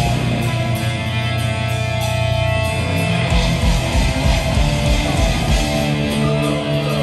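Heavy metal music carried by electric guitar, played loud and steady with held low chords.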